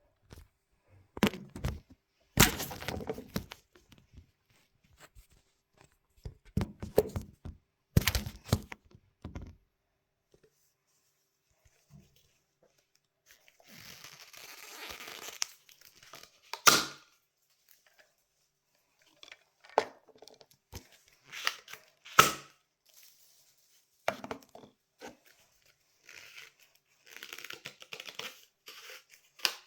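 Irregular bursts of crinkling, crackling and clicking, like something being handled, with near silence between them. The loudest are sharp cracks about 17 and 22 seconds in.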